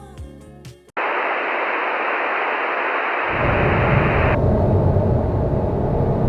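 Music cuts off about a second in and is replaced by a loud, steady rushing noise. About two seconds later a low rumble joins beneath it.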